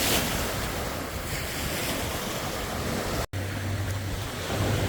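Ocean surf washing on the beach, with wind buffeting the microphone. The sound drops out for an instant a little past three seconds, and a steady low hum runs under the surf after that.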